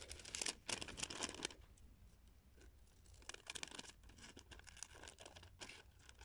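Sheets of craft paper rustling as they are picked up and handled, then scissors cutting through a paper square in a run of small, quick snips from about halfway through.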